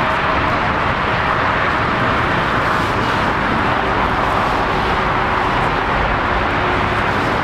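Pegasus Airbus A321neo airliner on final approach with gear down: steady jet engine noise, even and unbroken, with a faint hum of tones under the rush.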